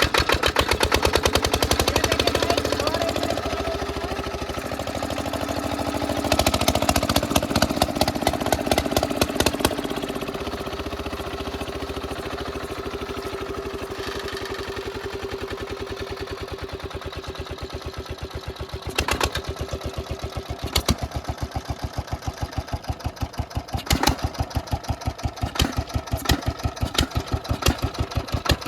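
Old engine running through a big new exhaust silencer, with a steady, even train of exhaust pulses. It is revved up for a few seconds early on, then settles back, and later is blipped several times with louder, sharper exhaust pops.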